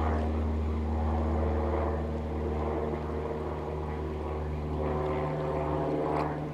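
A steady, low engine-like drone that holds one pitch throughout.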